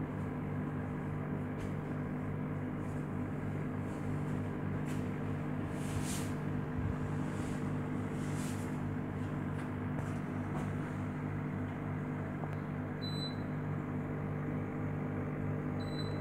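Steady electric hum of an aquarium pump, an unchanging buzz made of several fixed tones.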